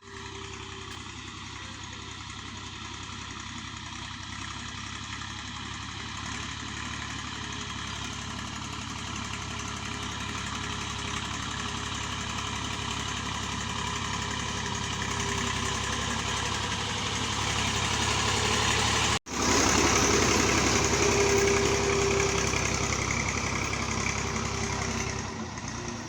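Tractor engine running steadily, slowly growing louder; it cuts out for an instant about nineteen seconds in, comes back louder, and eases off near the end.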